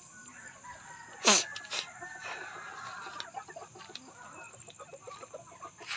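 Gamefowl chickens clucking softly, with one short, loud call falling in pitch about a second in.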